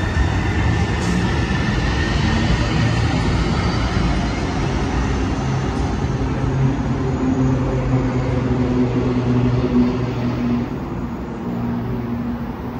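Sound Transit Link light rail trains (Kinkisharyo cars) pulling out of the station. The traction motors give a rising whine as they accelerate, over a steady low hum and the rumble of wheels on rail. The sound fades away near the end.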